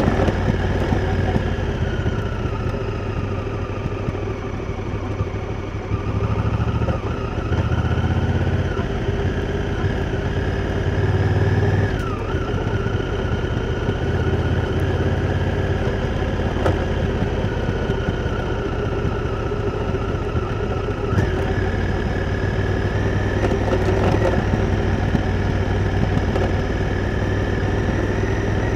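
Honda Africa Twin's parallel-twin engine running while the bike is ridden, its pitch falling and rising several times with the throttle, with sudden shifts in the engine note about twelve and twenty-one seconds in.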